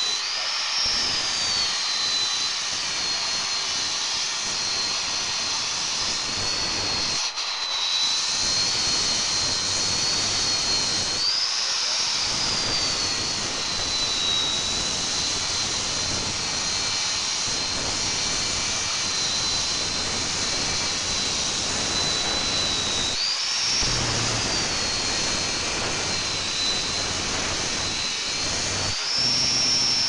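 FEIN GRIT GHB 15-50 handheld belt grinder running, its abrasive belt grinding a weld seam down on steel plate: a steady loud grinding noise over a high motor whine. A few times, about a second in, near twelve seconds, near twenty-four and near the end, the grinding noise drops away and the whine climbs briefly.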